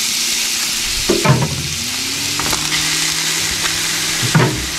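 Raw ground meat sizzling steadily in a hot frying pan as it is broken up and spread out with a utensil, with two short louder moments about a second in and near the end.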